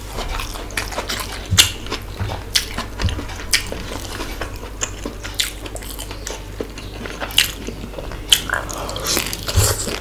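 A person chewing and smacking while eating chicken pulao and fish masala by hand: irregular wet clicks and mouth smacks.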